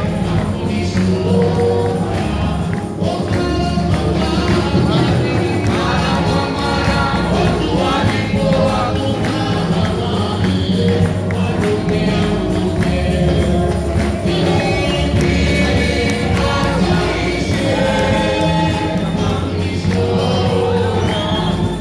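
Church congregation singing a gospel worship song, led by a woman singing into a microphone, over instrumental accompaniment with a steady bass line.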